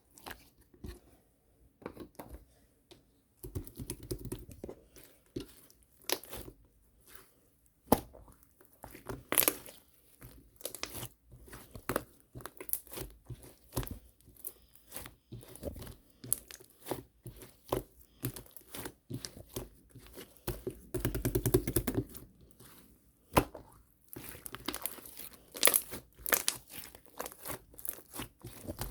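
Slime being played with by hand close up: squished, stretched and pressed, with irregular sticky pops and crackles.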